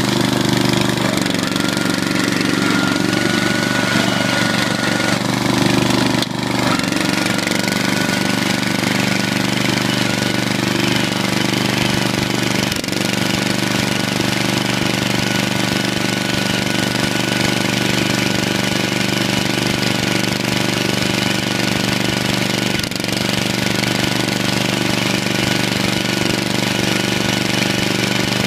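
Lawn tractor's engine running steadily while the tractor drives along, with a brief dip about six seconds in.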